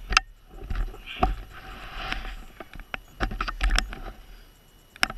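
Handling noise on a body-worn camera as its wearer moves: scattered sharp clicks and knocks, rustling, and a low rumble.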